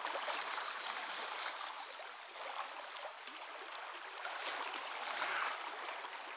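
Fast river current rushing steadily.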